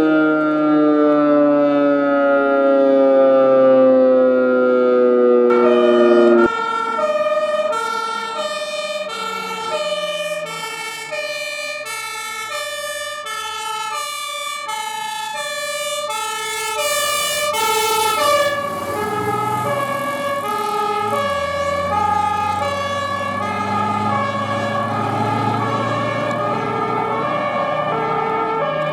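DS977 civil-defence siren winding down, its pitch falling steadily. About six seconds in it gives way to a fire engine's two-tone horn (Martinshorn) switching back and forth between a high and a low note. In the second half the truck's engine rumbles beneath it.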